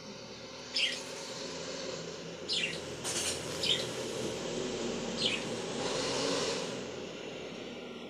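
Budgerigar chirping: about five short, high chirps, each falling in pitch, over a steady hiss.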